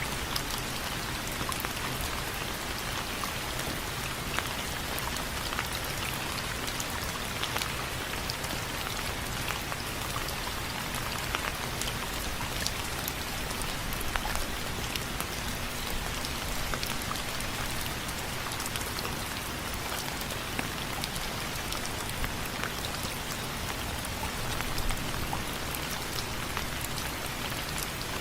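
Steady rain with many separate drops ticking on window frames, irregular and close.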